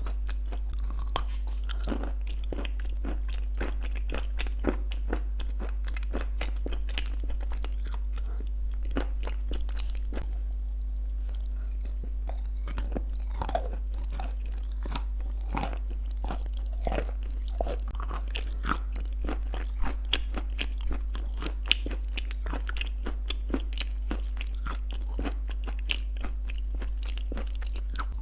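Close-miked chewing of crunchy clay pieces shaped like shortbread cookies, with clay paste: a dense, irregular run of sharp crunches and crackles, over a steady low hum.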